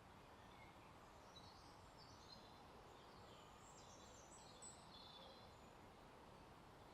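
Faint morning birdsong: scattered short, high chirps and trills from small birds over a quiet, steady outdoor hiss.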